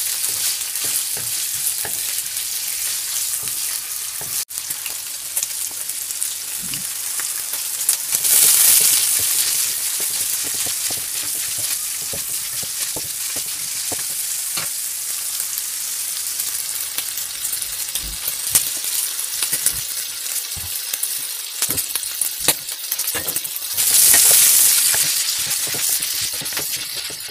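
Diced pork belly frying in a wok, a steady high sizzle as it browns, stirred with a wooden spoon that scrapes and taps the pan in small sharp ticks. The sizzle swells louder twice, about eight seconds in and again near the end.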